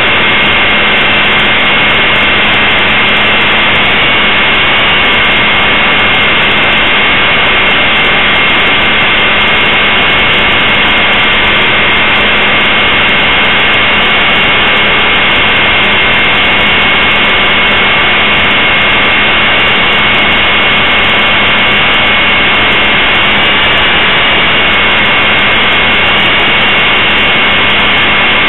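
Blade 450 3D electric RC helicopter in flight, heard from a camera mounted on it: a loud, steady high whine from the brushless motor and drive gears over the rush of the rotor blades. The whine wavers slightly in pitch twice as the throttle shifts.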